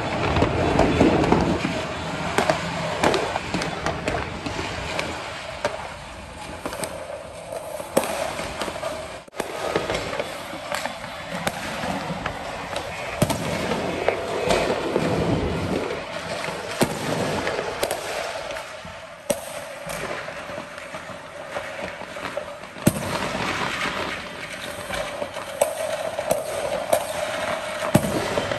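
Fireworks going off without pause: a dense run of sharp bangs and crackling pops, with heavier booms every few seconds.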